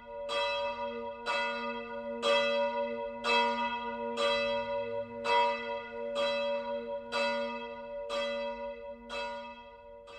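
A single church bell tolling, struck about once a second, around ten strokes on the same pitch, each ringing on into the next, growing fainter near the end.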